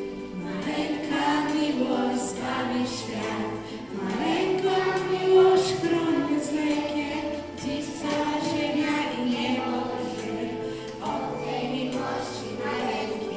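A woman singing a Christmas song into a microphone with a group of young children, over musical accompaniment with steady low notes.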